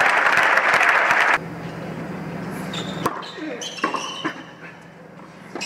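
Crowd applause for a tennis point that cuts off abruptly about a second and a half in. After it, in a quieter arena, come a few sharp knocks of a tennis ball being bounced and struck.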